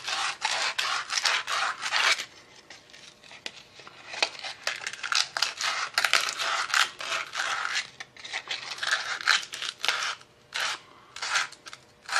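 100-grit sandpaper rubbed in quick back-and-forth strokes along a brass pen-kit tube, scuffing the metal so the glue will grip. The strokes run steadily for about two seconds, then come in shorter bouts with pauses between.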